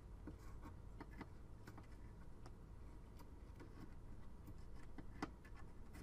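Faint scattered light taps and clicks of a RAM module's edge touching the motherboard's memory slot as it is lowered in and lined up, one slightly louder click about five seconds in, over a low steady hum.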